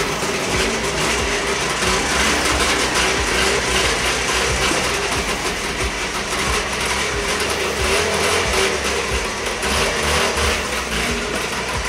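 Trabant 601 estate's two-cylinder two-stroke engine running at low revs as the car creeps forward, a steady, buzzy drone.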